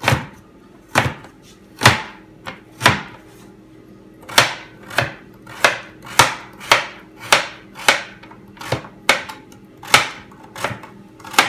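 Ordinary kitchen knife chopping a carrot on a plastic cutting board, the blade knocking the board with each cut. The strokes come about once a second at first, then quicken to about two a second from a few seconds in.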